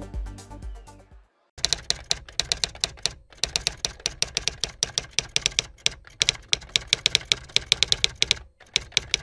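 Music fading out, then a typewriter sound effect: rapid keystroke clacks, several a second, broken by a few short pauses.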